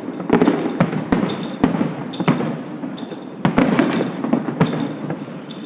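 Fireworks going off: many sharp, irregular bangs and cracks, coming thickest in two clusters, one just after the start and another about three and a half seconds in.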